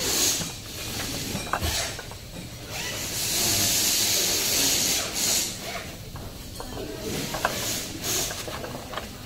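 A steel-framed folding wagon being handled: its fabric and frame rustle, with a longer hissy rustle in the middle and a few sharp clicks and knocks from the frame.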